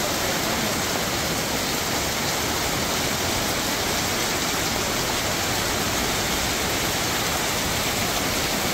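Heavy rain pouring down steadily onto a waterlogged street, a dense, even hiss.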